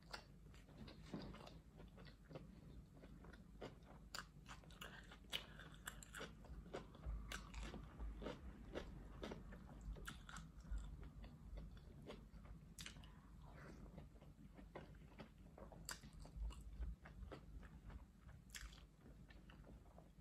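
Quiet, close-miked chewing of fried plantain and fried egg: wet mouth sounds with many soft, irregular clicks.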